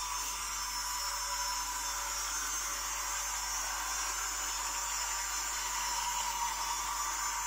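Toy train's small electric motor whirring steadily as it runs around its plastic track, a constant hum with a high hiss.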